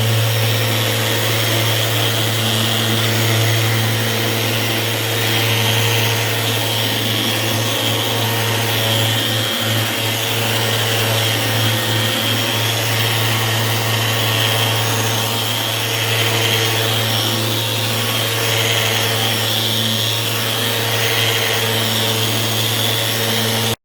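Electric orbital sander running steadily on a solid-surface (Corian) countertop, with a constant low hum, during the sanding and polishing of the surface.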